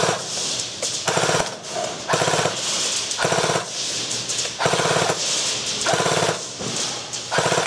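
Airsoft gun firing on full auto in short bursts, about one burst a second, each a rapid rattle of shots.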